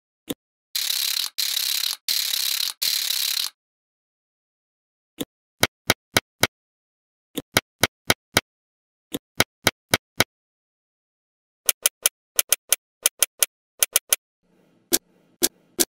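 Small magnetic balls rattling in four quick bursts of about half a second each as a clear plastic strip is run over rows of them, then sharp clicks of balls snapping together, in quick runs of four to six clicks.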